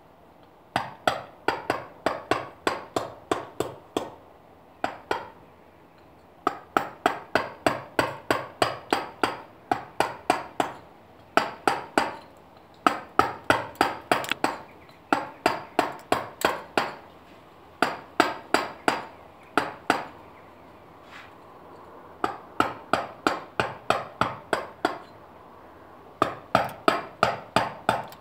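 Carver's round dummy mallet striking a tungsten-carbide chisel to cut limestone. It makes runs of sharp taps, about three a second, in bursts of a few seconds with short pauses between, and each tap has a brief metallic ring.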